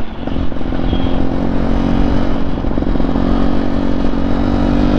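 Motorcycle engine running at a steady cruising pitch under way, heard from on board the bike, with a rough low rumble beneath it.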